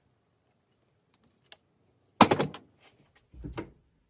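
Small tools and parts handled on a workbench: a sharp click, then a loud clack with a brief rattle, then a dull thump.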